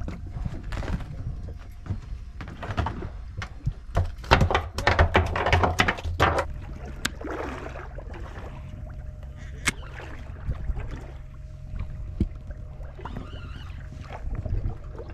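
Sounds on a small fishing boat at sea: steady wind and water noise, with a burst of knocking and rattling from the handling of rod, reel and gear about four seconds in. A steady low hum sets in about six seconds in.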